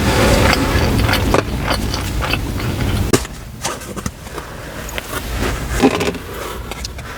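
Close-miked eating sounds: chewing with sharp clicks and wet mouth smacks from eating pizza and chicken wings. A low rumble under them drops away about three seconds in.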